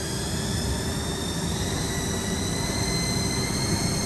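Main spindle of a Haas ST-30Y CNC turning center running at about 1500 RPM: a steady mechanical whine with several high tones, one edging slowly up in pitch, over a broad machine hum.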